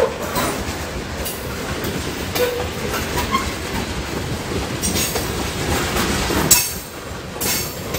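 Freight train's tank cars rolling past close by: a steady rumble of steel wheels on the rails, with scattered clicks and clanks from the wheels and couplers. There is a brief lull about seven seconds in.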